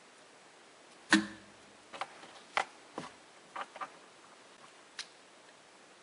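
A series of short, sharp clicks and small taps from hands and a wire stripper working on a car's dashboard wiring harness. The loudest click comes about a second in, and smaller ones follow at irregular intervals of about half a second to a second.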